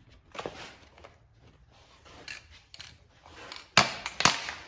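Faint handling noises, then two sharp, loud clicks or knocks about half a second apart near the end.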